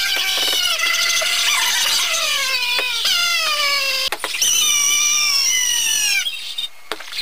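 High-pitched voices holding long wailing notes that slide slowly downward, made to wobble by vibrating furry toy animals pressed against the mouth. The notes break off briefly about four seconds in, start again, then fade near the end.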